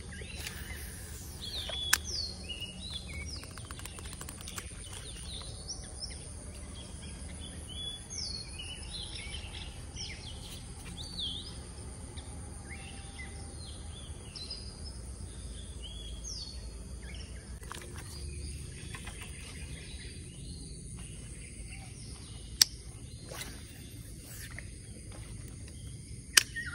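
Birds chirping over and over in short downward-sweeping calls, above a steady high insect drone. A few sharp clicks stand out, the first about two seconds in and two more near the end.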